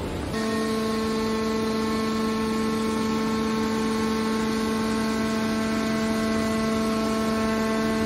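Hydraulic power unit of a scrap-metal baler, electric motor and pump, running steadily with a constant-pitched hum and whine while it drives the press-box lid down. It cuts in abruptly just after the start.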